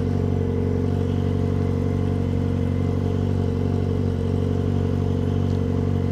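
Yamaha XJ6's 600 cc inline-four engine idling steadily, holding an even pitch without revving.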